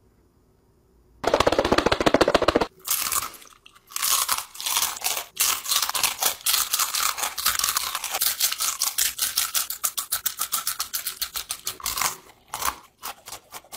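A short sputtering squirt from a squeeze bottle of blue hot sauce, then close, wet chewing and squelching of a mouthful of sauce-covered gummy worms, with a few stray clicks near the end.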